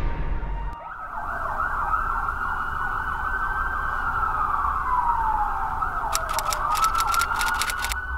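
Ambulance siren: a fast warbling yelp that gives way to a slow wail, falling in pitch and rising again. Near the end comes a quick run of sharp clicks.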